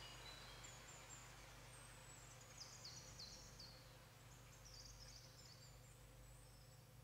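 Near silence: faint room tone with a steady low hum, and a few faint high-pitched chirps about three and five seconds in.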